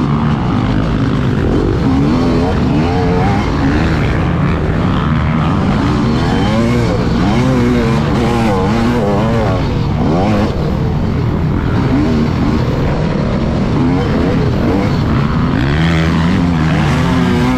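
Dirt bike engine ridden hard around a motocross track, its revs climbing and falling again and again with the throttle and gear changes.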